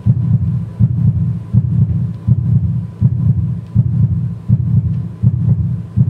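Heartbeat-like low pulse in the dance's soundtrack: a deep, often doubled thud repeating about every three-quarters of a second, with a faint steady high tone underneath.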